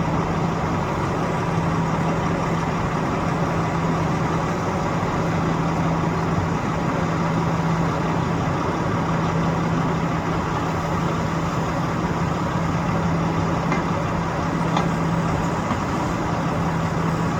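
Construction machinery engine idling steadily, with a constant low hum over a steady rumble.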